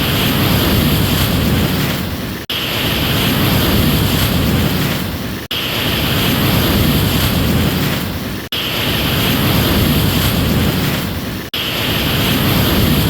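Ocean surf: a dense, steady wash of breaking waves, cut by brief dropouts at even three-second intervals.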